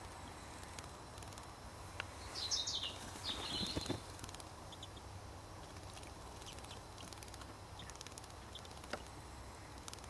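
A redpoll bathing in a shallow pool, dipping and shaking water from its feathers. There is a brief louder, high-pitched spell of splashing and chirping about two and a half to four seconds in, and a couple of light clicks, all over a low steady hum.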